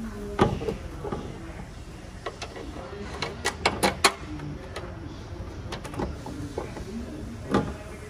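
Scattered clicks and taps of metal parts being handled as the sliding door's latch assembly is lined up and its bolts are fitted by hand, with a quick run of sharp clicks about three and a half seconds in.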